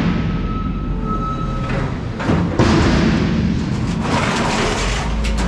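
Scrap metal clanking and scraping as steel frames are pulled off a loaded trailer, with several sharp knocks in the middle.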